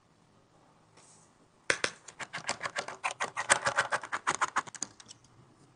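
A fast, irregular run of small, sharp clicks and taps, starting a little under two seconds in and thinning out near the end.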